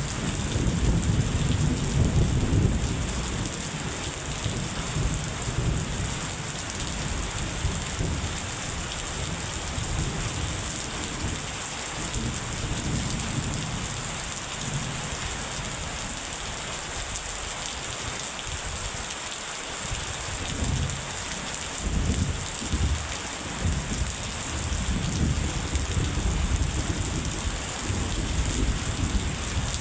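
Steady rain in a thunderstorm, with rumbles of thunder that are strongest in the first few seconds and come back several times in the second half.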